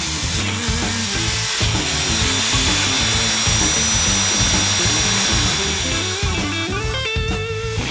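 DeWalt jigsaw cutting through a steel expanded-metal table top, the blade buzzing steadily, under background music.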